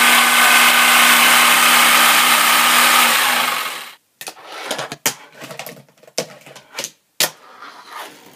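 A jigsaw cutting a board, running steadily and then winding down just before four seconds in. After it, a fingerboard rolls on a wooden tabletop, with several sharp clacks as the board is flicked and lands.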